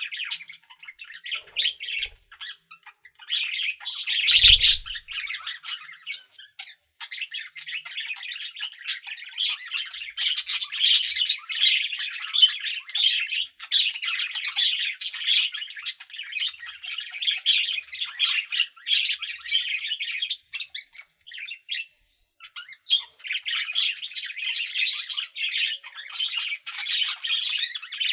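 Budgerigars chattering and warbling, a dense run of quick chirps and squawks with a few brief pauses. A brief low thump about four and a half seconds in.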